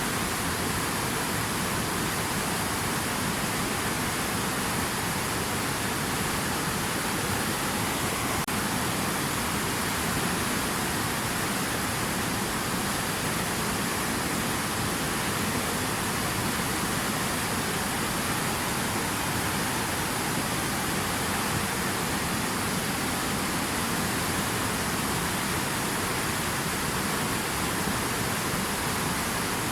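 A steady, even rush of water with no individual splashes or drops standing out, like a waterfall or heavy flow.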